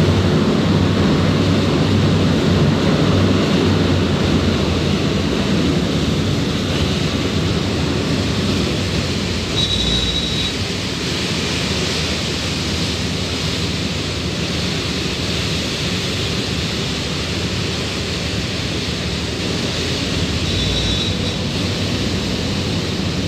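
SeaStreak high-speed ferry's waterjet drives running at speed: a loud, steady rush of churning wake water over a low engine hum, easing slightly after the first few seconds.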